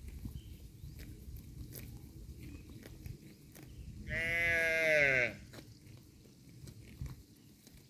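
Grazing cows tearing and chewing grass, with irregular crunching clicks. About four seconds in, a single bleating call lasting just over a second cuts through, its pitch dropping at the end; it is the loudest sound.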